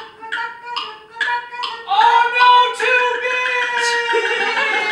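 Sharp wooden taps about two a second under a held sung note. Then, about two seconds in, a performer's voice gives a rooster crow: one long high note that rises, holds, and drops near the end.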